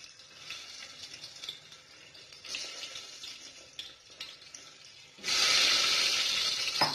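Hot oil with cumin seeds crackling faintly in a pressure cooker. About five seconds in, stuffed bitter gourds drop into the oil and the sizzle turns suddenly loud, with a short knock near the end.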